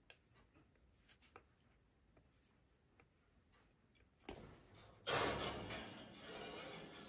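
Faint, sparse scraping of a block of cheese on a flat hand grater. About five seconds in comes a louder noisy scrape lasting about two seconds, as a baking dish is slid into an open gas-range oven.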